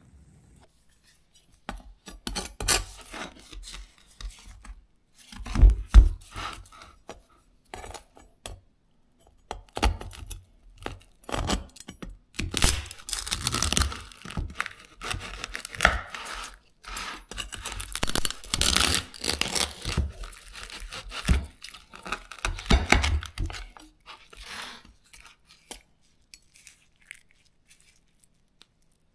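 A large kitchen knife sawing through crisp roasted pork belly crackling on a wooden cutting board: the skin crunches and crackles in irregular spurts, with a few heavier knocks of the blade against the board. It starts about two seconds in and dies away near the end.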